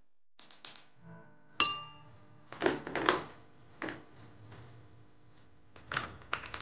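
Glass and plastic kitchen containers clinking and knocking as they are handled and set down on a counter. A sharp glass clink that rings on briefly comes about one and a half seconds in, then a cluster of knocks around three seconds and a few more clicks near the end.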